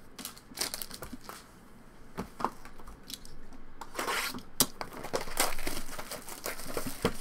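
Plastic shrink-wrap on a cardboard trading-card box being slit and torn off: scattered sharp clicks and scrapes, then a longer stretch of crinkling and tearing from about four seconds in.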